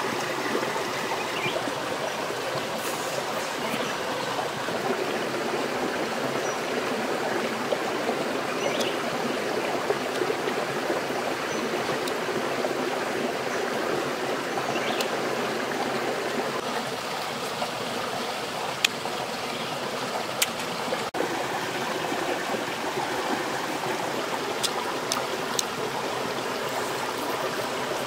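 Shallow rocky stream running steadily, water rushing and trickling over stones, with a few brief clicks in the second half.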